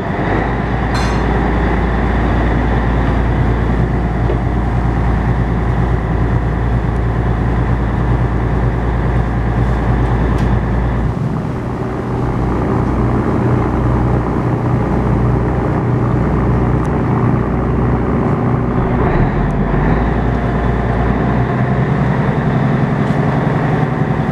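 Ferry engines running under way, a loud steady low drone and hum mixed with the rush of churning water from the propeller wake; the deepest rumble starts to waver about halfway through.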